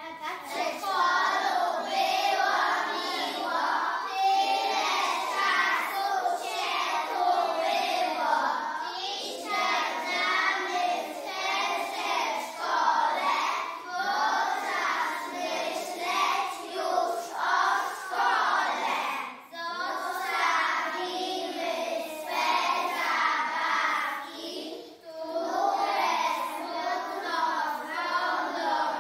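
A group of young children singing a song together, with brief pauses between phrases.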